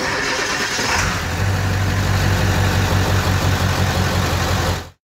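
Ford F-350's V8 diesel engine starting by remote after the glow-plug wait: about a second of cranking, then it catches and runs with a rapid low clatter. The sound cuts off suddenly near the end.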